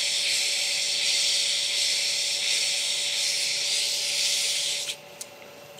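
400-grit wet/dry sandpaper held against a resin pen blank spinning on a lathe: a steady wet sanding hiss. It stops about five seconds in when the paper is lifted, leaving a faint steady hum.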